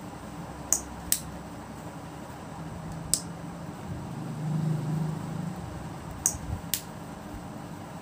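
Cap of a small plastic baby oil bottle clicking as it is flipped open and shut: five sharp clicks, a pair about a second in, one near three seconds and another pair near the end. A brief low hum in the middle, over a steady hiss.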